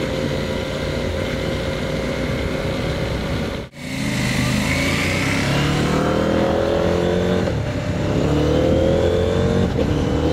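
CFMOTO 800MT Explore's 799 cc parallel-twin engine heard from the rider's seat, first running steadily, then cutting out briefly about a third of the way in. After that the motorcycle accelerates, its revs rising in three climbs as it shifts up through the gears.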